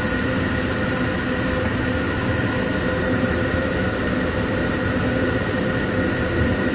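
Steady mechanical hum with several constant tones over an even drone, at the same level throughout, like factory machinery running.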